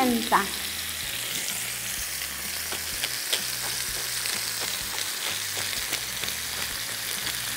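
Pork ribs sizzling as they sear in a frying pan over high heat: a steady hiss with scattered small crackles.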